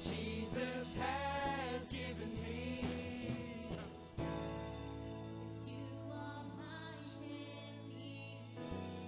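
A live worship team sings a gospel song over a band, with a steady beat through the first few seconds. About four seconds in, the band moves to a long held chord while the voices carry on more softly.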